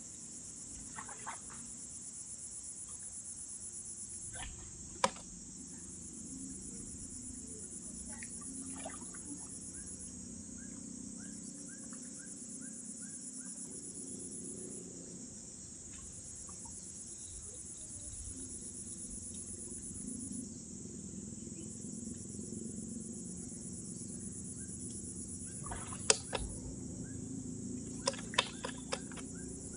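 Insects trilling in a steady high chorus that breaks off briefly every few seconds, with a few sharp knocks or splashes about five seconds in and again near the end.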